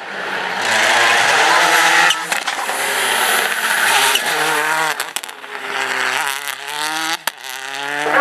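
Skoda Octavia rally car's engine revving hard through the gears at speed, its pitch climbing and dropping repeatedly with the shifts, with abrupt jumps in the sound a few times.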